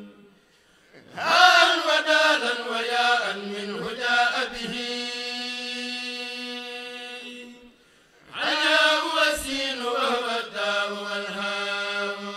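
A kourel, a group of Mouride men, chanting a khassida through microphones, with no instruments. Two long phrases: each opens loud with ornamented pitch turns and settles into a long held note. Short breaks come just before each phrase, about a second in and about eight seconds in.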